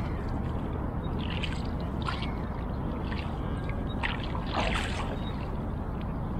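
Oars of an inflatable rowboat dipping and splashing as it is rowed, with a few separate splashes over a steady low rumble.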